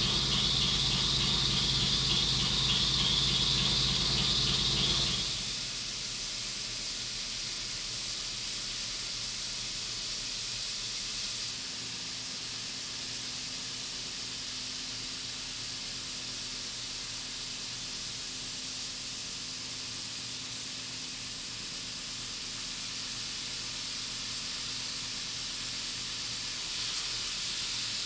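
Doosan DNM5700L CNC mill face-milling titanium with a 3-inch Kennametal Dodeka Mini shell mill under flood coolant. For about five seconds the roughing cut sounds loud and pitched, with a rhythmic pulse. It then drops to a steady hiss of coolant spray with a faint low hum during the light finish pass.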